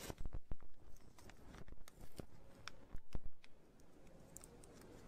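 Scattered light clicks and taps at an irregular pace, the sound of small objects being handled.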